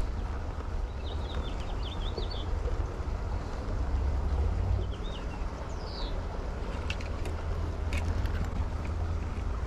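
A small bird chirps in short, quick trills a few times over a steady low rumble. A few faint clicks come near the end.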